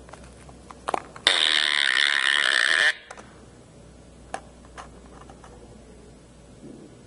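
Disgusting Sounds novelty keychain playing one of its recorded gross sound effects through its tiny speaker for about a second and a half, set off by a button click just before it. A couple of faint clicks follow later.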